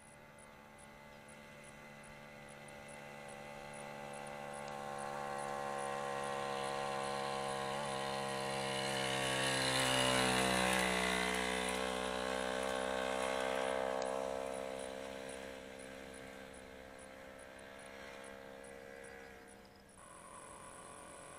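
A veteran lightweight motorcycle's small engine running steadily as it climbs past. It grows louder over several seconds, drops in pitch as it passes about halfway through, then fades away.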